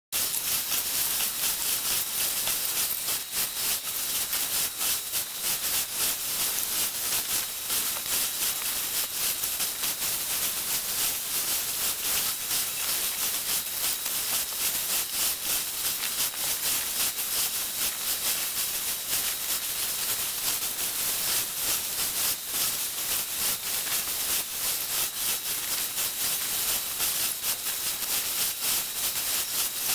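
Ocean surf on a sandy beach, heard as a steady crackling hiss with no clear rise and fall of single waves.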